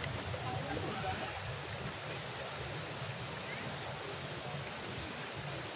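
Steady outdoor background hiss with faint distant voices.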